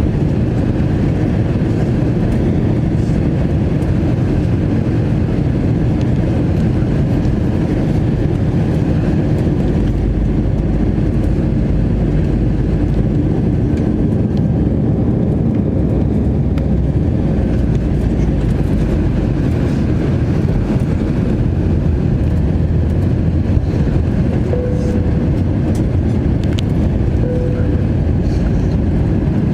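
Airbus A321 passenger-cabin noise during descent: a steady, loud rush of airflow and jet-engine hum. Near the end it carries a couple of short, faint whistle-like tones.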